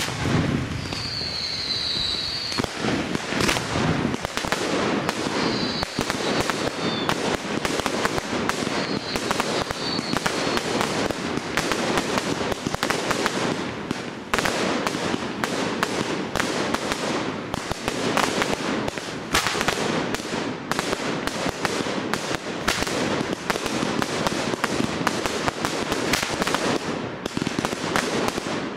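Fireworks display: a dense, continuous barrage of rapid, overlapping bangs, with a few short high whistles in the first ten seconds or so.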